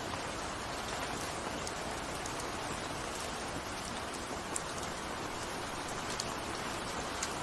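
Steady rainfall, an even hiss of falling rain with a few separate drop ticks scattered through it.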